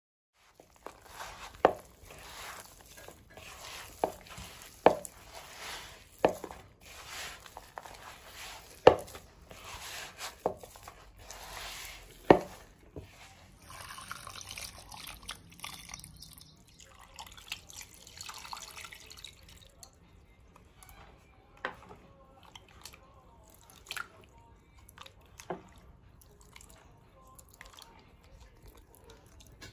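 Hand mixing thick rava dosa batter of semolina and flour in a plastic bowl: wet squishing with sharp slaps every second or two. About halfway, water is poured in for several seconds. After that comes quieter squelching of the thinned batter with a few single slaps.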